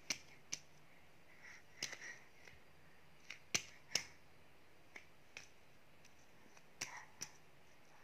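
A toddler's hands patting and slapping a flat surface: a string of sharp, irregularly spaced taps, a few louder than the rest, with softer shuffling sounds between.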